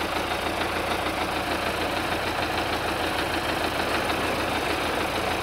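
An engine running steadily at idle, an even mechanical drone with a fast low pulse that doesn't change.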